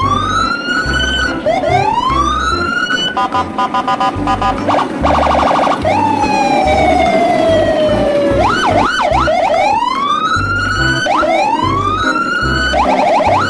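Background music with a steady bass beat, overlaid with electronic siren-like sound effects: repeated rising whoop sweeps, a stretch of rapid beeping about three seconds in, one long falling tone in the middle, and fast wavering wails near the end.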